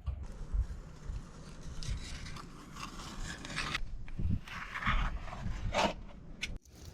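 Utility knife scraping and rubbing along a siding joint, cutting out old, aged sealant in uneven strokes.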